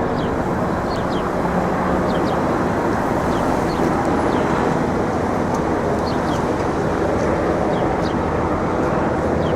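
Steady outdoor city din of traffic, with faint short high chirps now and then.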